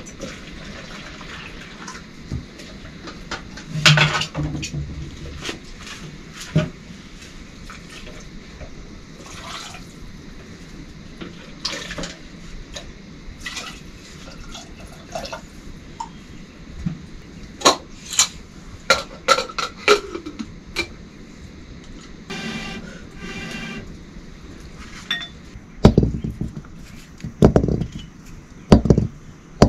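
Water pouring and splashing while metal pots and dishes clink and knock, as when washing up or rinsing in a kitchen. A few heavier knocks near the end.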